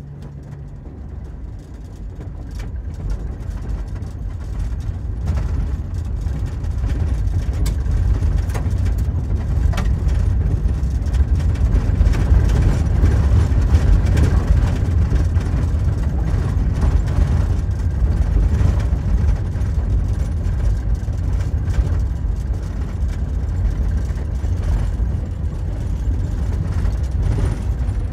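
Vehicle driving on a gravel road, heard from inside the cab: a steady low rumble of engine and tyres on gravel, with scattered small ticks. It grows louder over the first several seconds, then holds steady.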